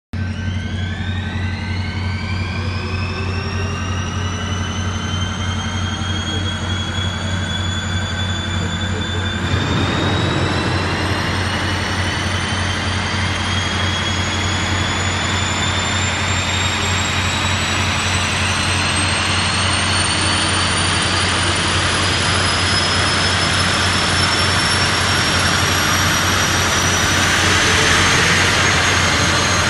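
Twin turboshaft engines of a T625 helicopter spooling up on an engine run: a turbine whine that climbs steadily in pitch, getting louder with a rush of noise about ten seconds in, over a steady low hum.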